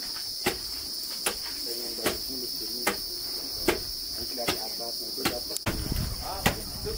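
Long wooden pestle pounding in a mortar, a short knock about every 0.8 s, over a steady high-pitched drone of insects.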